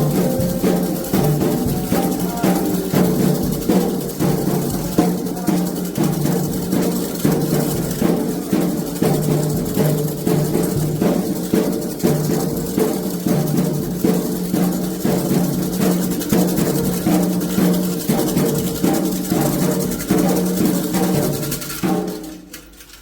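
Candomblé ritual music: atabaque drums beating a steady, fast rhythm with a struck metal bell over held sung tones. It dies away about a second before the end.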